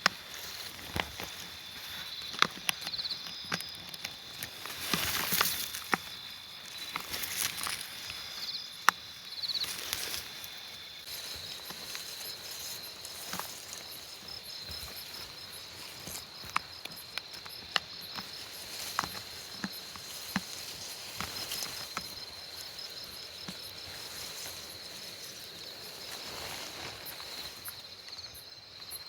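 Insects trilling steadily at a high pitch, with a second, pulsing insect call joining about a third of the way in, over scattered crackles and rustles.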